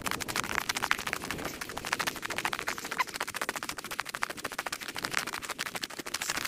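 A trail field recording played back eight times fast: a dense, rapid rattle of clicks over a hiss.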